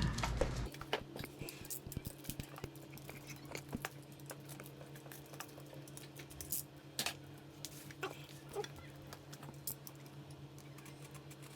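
Scattered faint clicks and rustles of a package being unwrapped by hand, over a steady low hum.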